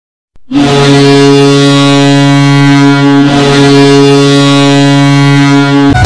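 Ice hockey goal horn blowing one long, steady, deep blast, starting about half a second in and stopping near the end.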